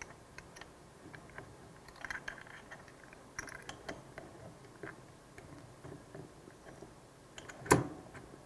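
Small metal parts clicking and rattling as a handle shaft is slid through a loading-coupler body and onto its cam and tube spacer, with one louder metal knock near the end.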